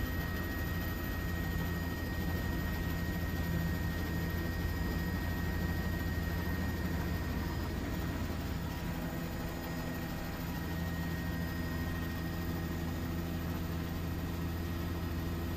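Steady aircraft engine drone: a low, even hum with a thin high whine over it, easing slightly about halfway through.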